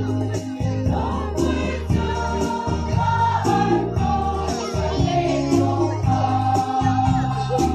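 Women's choir singing a hymn together over an accompaniment with a steady bass line and a regular beat.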